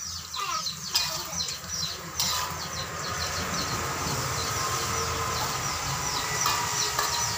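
Meat and greens sizzling in an aluminium wok, a steady hiss, while a metal spatula scrapes and knocks against the pan, with sharp knocks about one and two seconds in.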